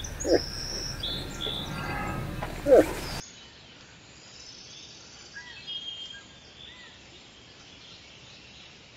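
Moose giving two short calls, one just after the start and one at about two and a half seconds, over songbirds singing. After about three seconds the sound drops to a quieter background with only faint bird chirps.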